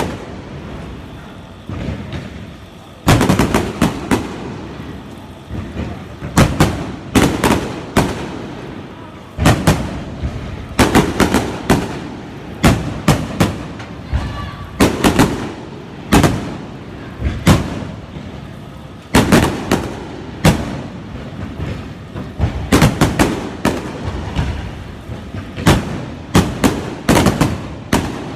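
Aerial fireworks display: shells bursting in a continuing series of loud bangs, often in quick pairs or clusters, each trailing off in a short echo.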